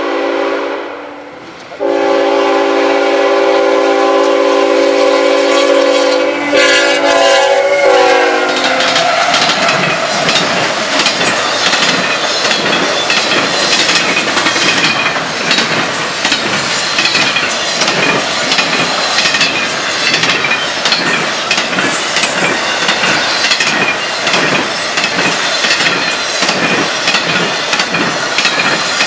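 CSX freight locomotive's air horn sounding a chord for the grade crossing: it breaks off briefly about a second in, then sounds again for about six seconds, its pitch dropping as the locomotive passes. Then the double-stack intermodal train rolls by, its wheels clattering rhythmically over the rail joints.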